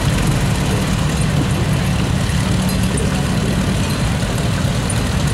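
Antique farm tractor engine running steadily as the tractor drives past at a slow parade pace, a continuous low rumble.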